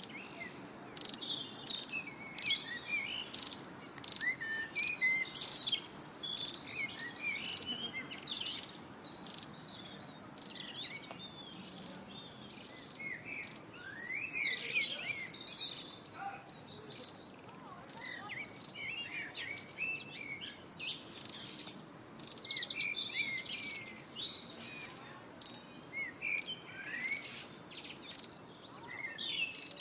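Many small songbirds chirping and singing together without a break: a dense chorus of quick, high chirps and short trills.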